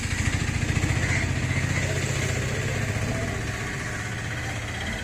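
Motor scooter engine running close by, a low pulsing engine note that slowly fades as it moves away.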